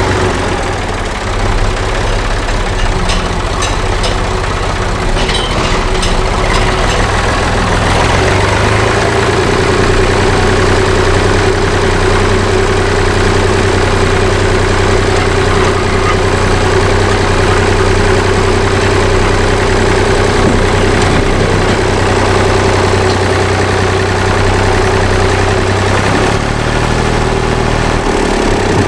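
Farm tractor engine running steadily as the tractor drives with its front loader. It picks up a little about eight seconds in, with a few light rattles in the first several seconds.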